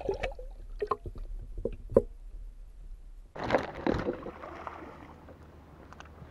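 Water sloshing and knocking around a camera pole held in the lake, with scattered clicks and one sharp knock about two seconds in. About three and a half seconds in, a louder rush of splashing water as the camera is pulled out, then a faint steady low hum.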